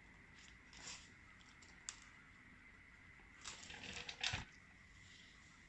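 Faint handling noises from starter motor parts being worked by hand: a light click just under two seconds in, then a short run of scrapes and clicks near the four-second mark.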